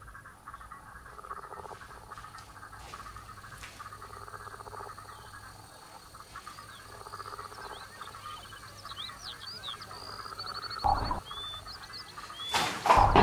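Night-time frog chorus, a steady croaking, joined in the second half by short high chirps and a brief trill. Two louder sudden sounds come near the end.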